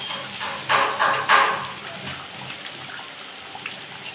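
Chicken curry bubbling in a steel kadai, with a few louder liquid sloshes about a second in.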